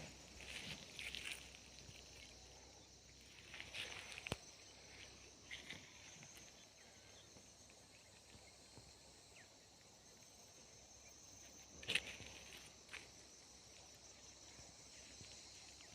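Faint, steady high chirring of insects such as crickets, with scattered soft rustles and a sharper click about twelve seconds in.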